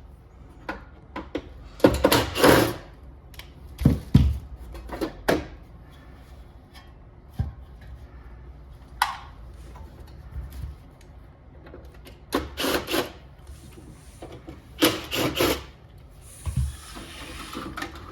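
Irregular rubbing and scraping sounds with a few knocks, spaced a few seconds apart, from parts being handled while working on an air conditioner unit.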